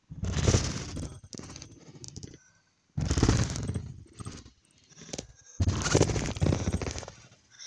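A trampoline being jumped on: three loud bursts of thumping, each starting suddenly and dying away over a second or two.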